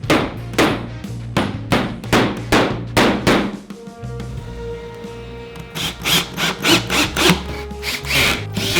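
Background music with a run of sharp knocks, about two to three a second. The knocks stop for a couple of seconds midway and then start again.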